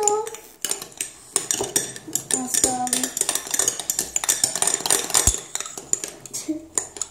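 Metal spoons stirring and scraping a thick slime mixture in glass bowls, with many irregular sharp clinks of spoon on glass.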